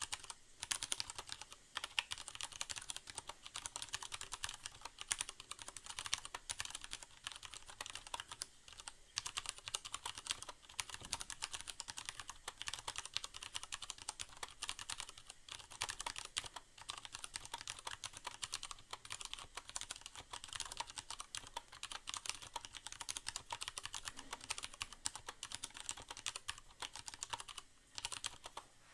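Continuous typing on a Leopold FC750R mechanical keyboard with Cherry MX Brown tactile switches and a sound-dampening pad inside the case: rapid, dense key clicks with a few short pauses.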